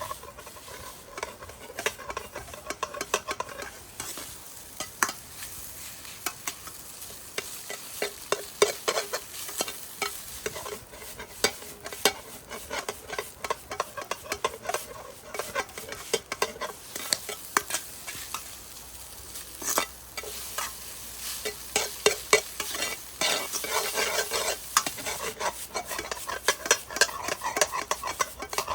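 Fried rice stir-frying in a pan over high heat: a steady sizzle under frequent sharp clicks and scrapes of a spatula against the pan.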